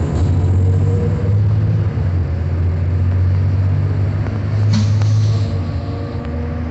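Engine and road noise of a large vehicle heard from inside its cabin: a steady low rumble that eases off near the end. A brief sharp hiss or click about two-thirds of the way through.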